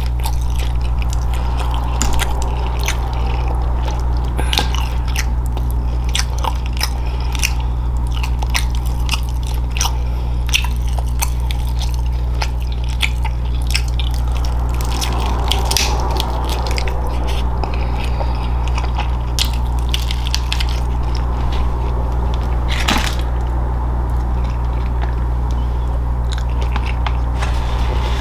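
Close-miked chewing and biting of food, with many short sharp crunches and clicks, over a steady low hum.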